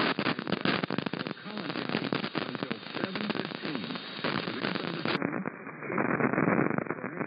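Broadcast radio audio thick with crackling static and interference, with a faint, garbled voice underneath. About five seconds in, the sound abruptly turns more muffled, as the audio switches to a narrower-band source.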